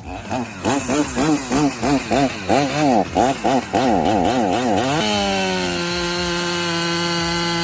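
Two-stroke chainsaw blipped repeatedly, its pitch rising and falling two to three times a second. About five seconds in it is held at high revs as one steady tone that slowly sags in pitch.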